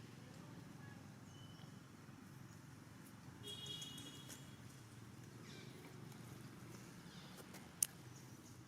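Faint outdoor background with one short, high-pitched animal call about three and a half seconds in and a single sharp click near the end.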